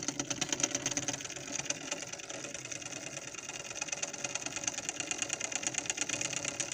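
Small homemade solenoid engine running on a 15 farad supercapacitor, its coil pulling the plunger and turning the flywheel with a rapid, even mechanical clatter.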